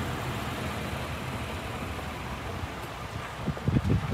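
City street traffic with a car engine running close by, a steady low hum. A few louder low bumps come near the end.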